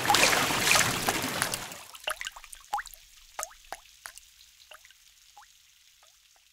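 Splashing water fading away, then a run of single water drips, each a short plink rising in pitch, coming further apart and fainter over about four seconds.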